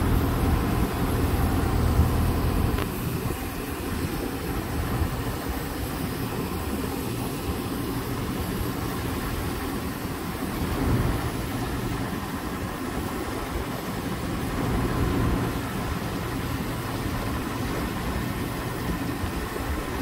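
Heavy machinery's engine running steadily with a low rumble, swelling briefly a couple of times.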